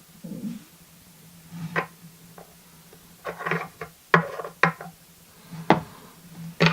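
Small metal lock parts, the pins and core of a disassembled pin-tumbler lock, clicking and tapping on a hard work surface as they are handled. There are several sharp separate clicks with light rustling between them, over a steady low hum.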